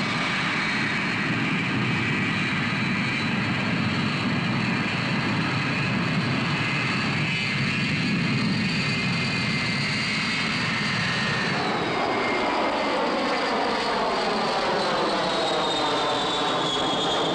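Boeing 707 jet airliner's four engines at takeoff power, a loud steady jet noise with a high whine. About twelve seconds in the deep rumble thins and the whine falls slowly in pitch as the aircraft climbs away past overhead.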